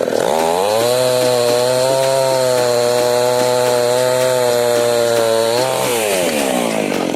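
Chainsaw revved up to high speed, held steady for about five seconds, then let back down toward idle near the end.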